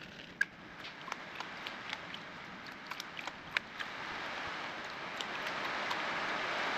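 Water splashing and sloshing in a plastic gold pan being dipped and shaken in a tub of water to pan down concentrate. Scattered small clicks and drips come first, then the water noise grows steadily louder over the second half.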